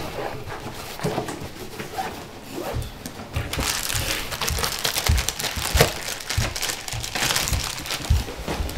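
Crinkling and crunching of a clear plastic snack bag and its contents being handled, growing dense and crackly about three and a half seconds in, with several dull low thumps.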